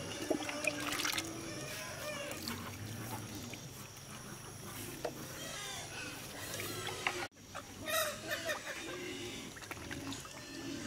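Chickens clucking, with a few sharp knocks in the first second; the sound drops out briefly about seven seconds in.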